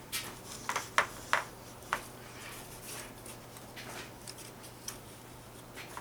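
Handling noise: a quick run of sharp clicks and light knocks in the first two seconds, then a few scattered clicks, over a steady low hum.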